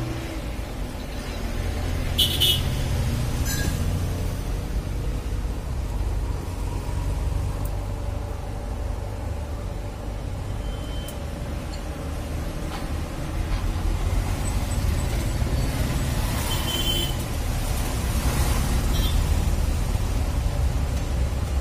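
Steady low rumble of street traffic. A few short high-pitched sounds come through it about two seconds in, a second later, and again about three-quarters of the way through.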